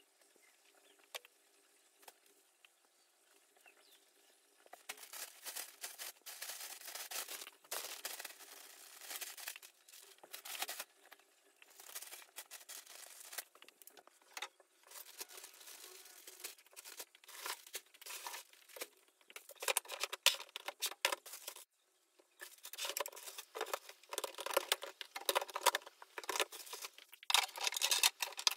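Rustling and crinkling of something being handled, in irregular bursts that start about five seconds in and grow louder toward the end, with a brief pause about three-quarters of the way through.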